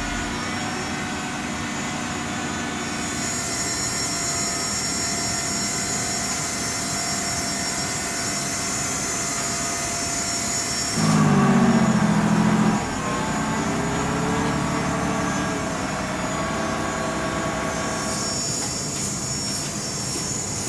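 Steady whine and hum of aircraft engines heard inside a C-17 Globemaster's cargo hold. A louder, deeper engine drone swells for about two seconds near the middle.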